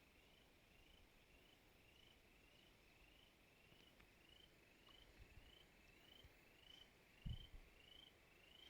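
A faint, steady series of short rising chirps, about two a second, from a calling animal, with one low thump about seven seconds in.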